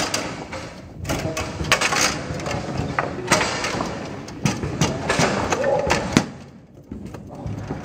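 Foosball play: sharp clacks of the ball struck by the players' figures and hitting the table walls, with the rattle and knock of the rods being spun and slid, at irregular intervals.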